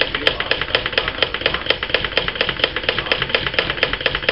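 Royal 10 standard typewriter being worked, clicking in a fast, even rhythm of about five strikes a second as its mechanism and escapement are tested after a new drawband and a reset mainspring.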